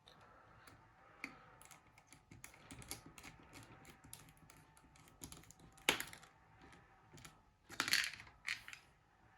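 Small, irregular clicks and taps of a screwdriver and plastic parts on a Nokia E71 mobile phone being put back together, with a louder click about six seconds in and a short cluster about eight seconds in.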